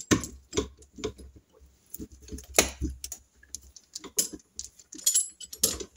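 Irregular small clicks, taps and knocks of hands handling a bank of three Amal Concentric carburettors and the rubber fuel pipe being refitted to them.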